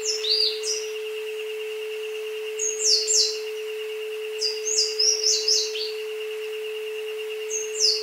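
Synthetic isochronic tones: a steady low hum-like tone with a higher tone pulsing over it. Layered over recorded jungle birdsong that comes in short clusters of high chirps, four times.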